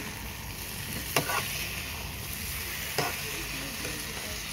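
Tofu and shredded coconut heart frying in a pan with a steady sizzle, stirred with a metal spatula that clinks sharply against the pan about a second in and again near three seconds.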